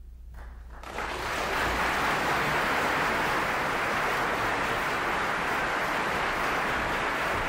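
A low hum, then about a second in a loud, steady rushing noise begins abruptly and holds without change.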